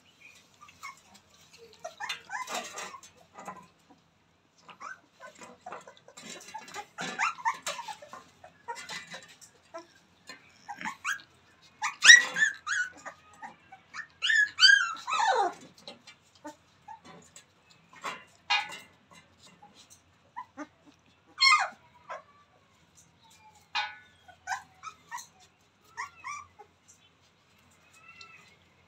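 Rottweiler puppies whimpering and yelping in short, high-pitched cries, some sliding down in pitch, with softer rustling in between. The loudest cries come about halfway through.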